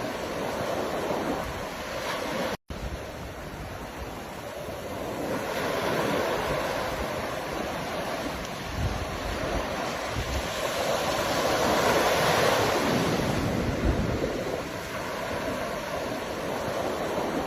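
Ocean waves breaking and washing ashore in a steady surf, swelling louder twice as larger waves come in. A split-second dropout to silence cuts in once, about two and a half seconds in.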